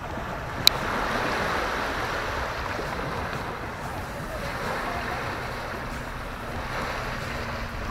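Small waves washing up onto a sandy beach, with wind on the microphone. A single sharp click comes a little under a second in.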